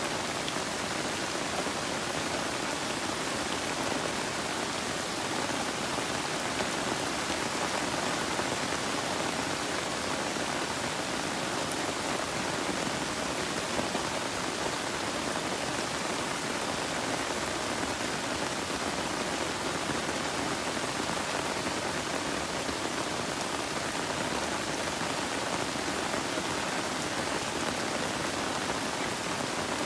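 Steady rain falling on broad leaves and garden plants: an even, unbroken hiss of drops.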